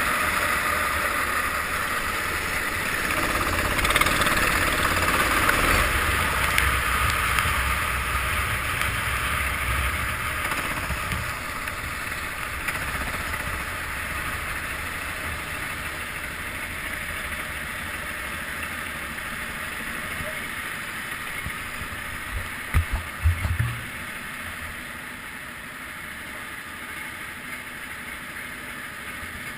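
Go-kart engine running with rushing wind and road noise on a wet track, slowly dying away as the kart slows into the pits and stops. A few thumps near the end.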